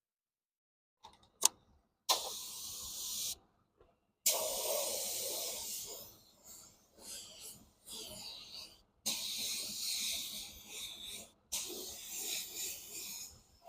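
Spray nozzle hissing in four bursts, each one to two seconds long, starting and stopping sharply, with a sharp click just before the first.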